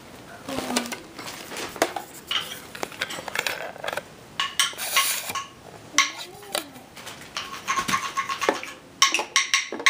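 Small metal parts of a toy microphone stand clinking and rattling as it is handled and put together, ending in a quick run of ringing clinks near the end.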